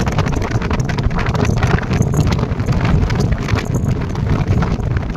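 Wind buffeting the microphone: a loud, continuous low rumble with a dense crackle over it.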